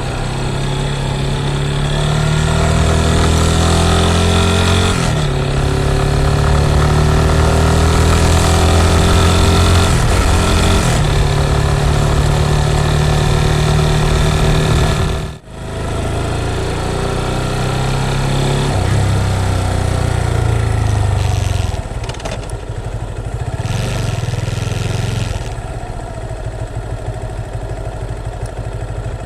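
Motorcycle engine running while riding, its note holding steady for stretches and changing pitch several times, with a steady rushing noise over it. The sound cuts out briefly about fifteen seconds in.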